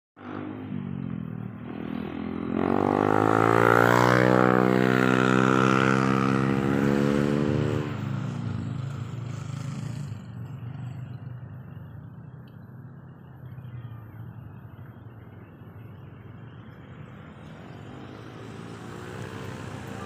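A motor vehicle's engine passes close by: its pitch rises over a couple of seconds, holds loud, then drops and fades about eight to nine seconds in, leaving steady outdoor background noise.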